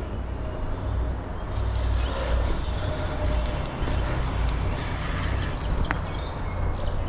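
Steady low outdoor rumble with scattered light clicks and ticks.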